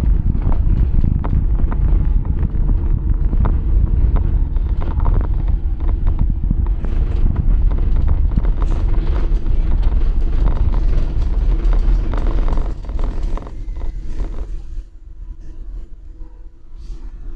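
Inside the cab of a small electric minibus rolling over cobblestones: a loud low rumble from the tyres, with many rattles and knocks from the body. It quietens near the end as the bus slows.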